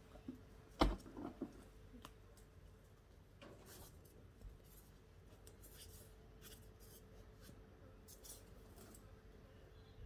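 A single sharp knock about a second in, fitting a plastic garden tub set down, then a few lighter taps and sparse faint crisp rustles and clicks of hands working soil and seed in a raised garden bed.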